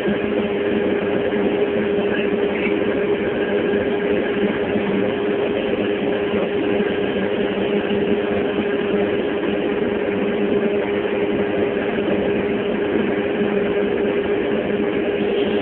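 Steady machine hum: an unbroken drone with a constant low tone.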